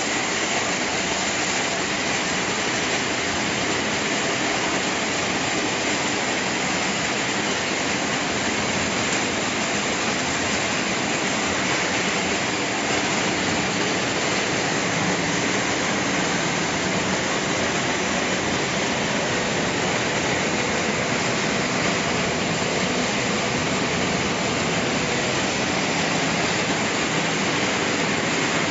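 Copper-aluminium radiator recycling line running: a steady, dense machine noise of crushing, separating and conveying equipment, with a faint low hum under it and no breaks.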